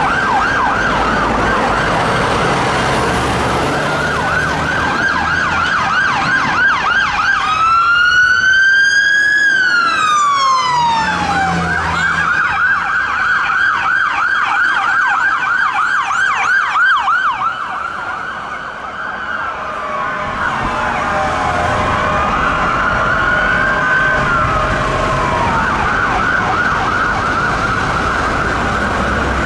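Electronic sirens of fire and rescue vehicles responding, switching between a fast yelp and a slow rising-and-falling wail, over engine rumble. A slow wail sweep about a third of the way in is the loudest part. Later, two sirens sound at once.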